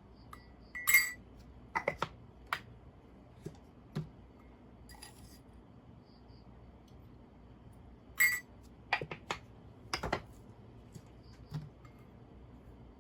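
Scattered clinks and taps of small hard objects, about a dozen in all, a few of them ringing briefly with a bright high tone; the loudest come about a second in and about eight seconds in.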